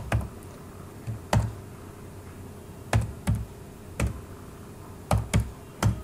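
Keys on a computer keyboard pressed one at a time in slow, uneven typing: about ten single keystrokes with short pauses between them.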